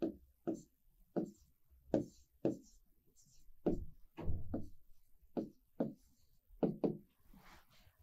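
Stylus pen tapping and knocking against an interactive display screen while digits are written on it: about a dozen short, sharp knocks at an uneven pace, with a slightly longer scratchy cluster just after the middle.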